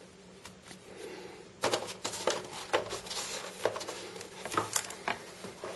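Paper manuals and packaging being handled by hand: quiet at first, then from about a second and a half in a run of rustles, crinkles and small clicks.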